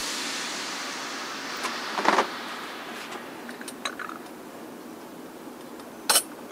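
Cans and tableware being handled on a wooden table: a soft knock about two seconds in, a few light ticks, and two sharp clinks near the end, over a faint steady hiss.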